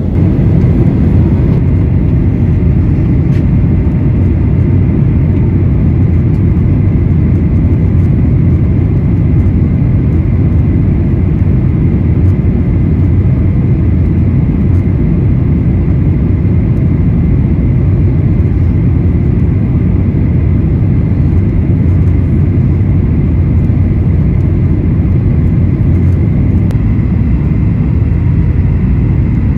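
Steady cabin noise inside a Boeing 737-900ER airliner in descent: a deep, even rush of airflow and engine noise, with a faint steady high tone above it.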